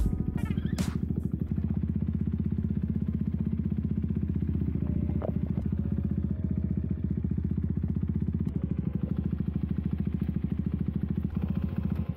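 Husqvarna Svartpilen motorcycle engine running steadily at low speed while being ridden, with an even rapid exhaust pulse that cuts off abruptly near the end.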